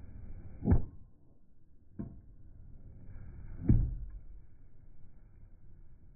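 Two heavy thuds about three seconds apart, with a lighter knock between them: blows smashing a keyboard keycap.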